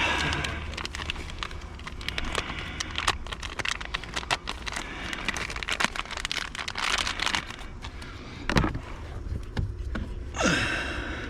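Clicks, knocks and rustling of hands working a plastic wiring connector loose from the brake pedal switch under a car's dashboard, over a steady low hum.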